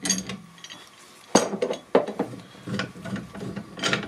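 Irregular metal clinks and knocks as a steel spring compressor and spanner are handled against a freshly rebuilt car front coil-spring strut, the compressor being taken off the spring, with a quick run of clicks near the end.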